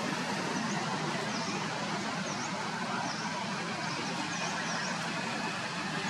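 Steady outdoor background noise with faint, short high chirps repeating roughly once a second, typical of a small bird calling.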